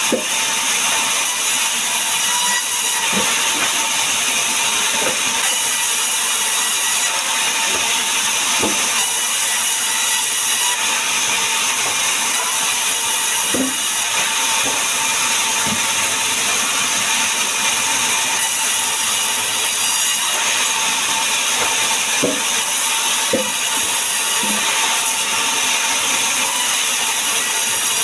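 Sawmill band saw running steadily as a log slab is fed through and sawn into a plank, an even loud noise with a few steady tones. A few light knocks of timber being handled come in now and then.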